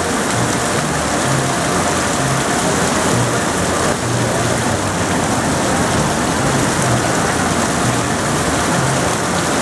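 Heavy tropical-storm rain pouring steadily.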